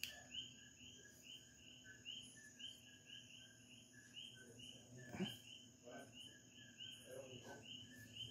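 Faint, regular chirping, about two chirps a second, from night insects such as crickets, with a few soft knocks of handling about five to seven seconds in.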